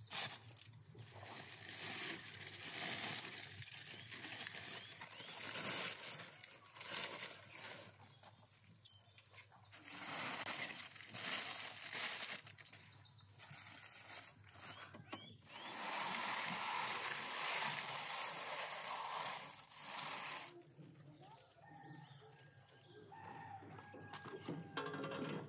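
Aluminium foil crinkling and tearing as it is peeled off a roast and crumpled by hand, in irregular bouts with a louder stretch past the middle.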